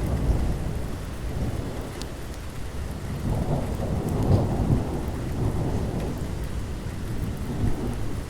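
Thunderstorm: rolling thunder rumbling low and swelling about halfway through, over steady rain with scattered drops.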